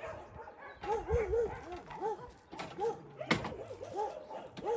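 A dog whimpering: short, high, rise-and-fall whines repeated in little runs of two or three. There is one sharp knock about three seconds in.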